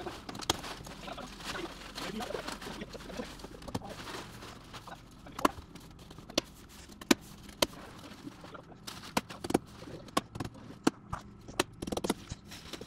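Irregular sharp clicks and knocks, a few of them loud, as house wrap is fastened by hand onto the exterior wall of a pallet-wood building.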